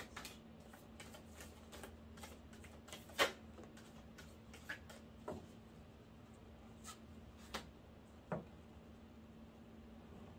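Tarot cards being shuffled and handled: scattered soft clicks and taps of the cards, the loudest about three seconds in, over a faint steady low hum.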